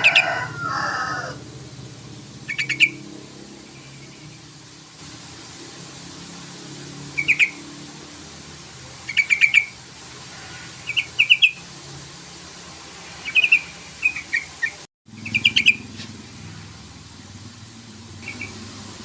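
Yellow-vented bulbul (trucukan) giving short, quick bubbly call phrases in bursts every one to three seconds. It is a challenge call used to provoke rival bulbuls into calling back.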